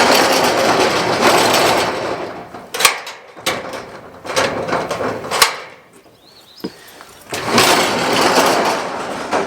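Shed door being pulled shut along its just-straightened track, a rumbling scrape in three long pulls with sharp clunks between them.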